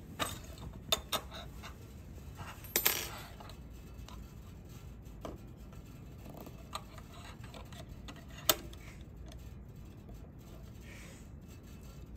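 Metal hand tools and the sewing machine's thread-trimmer knife parts clinking on a workbench while the knife's screw is tightened with a hex key. A few sharp metallic clicks early on, a short clatter about three seconds in, and one more sharp click near the end.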